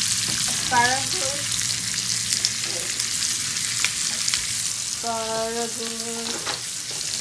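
Bacon-wrapped asparagus pan-frying in a frying pan: a steady sizzle with scattered small crackles.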